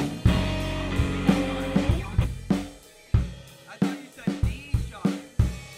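Loose, unrhythmic playing on a drum kit, with sharp snare, kick and cymbal hits, while guitar chords ring out. The sound drops away briefly about halfway before the drum hits start again.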